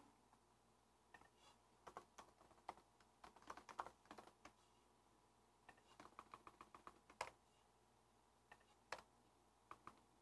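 Faint typing on a computer keyboard: short runs of keystrokes with pauses between them, then a few single strokes near the end.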